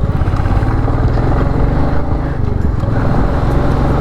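Motorcycle engine running steadily, with an even firing pulse and no change in pitch.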